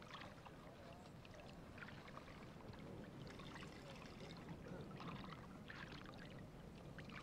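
Near silence: a faint steady hiss with a few faint clicks.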